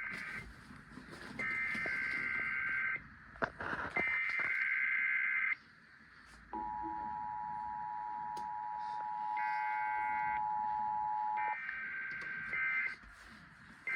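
Emergency Alert System test signal. The screeching SAME digital header bursts repeat, each about a second and a half long with short gaps between them. Then the steady two-tone EAS attention signal holds for about five seconds. Near the end a shorter data burst starts the end-of-message code.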